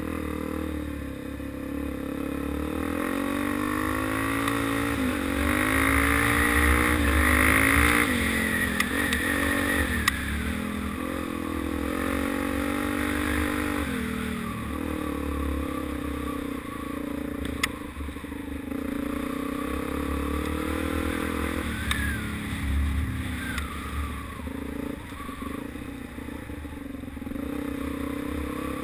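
Suzuki DR-Z400's single-cylinder four-stroke engine running off-road, its pitch climbing as it accelerates and dropping back several times, loudest a few seconds in. A low rumble runs underneath, with a couple of sharp knocks.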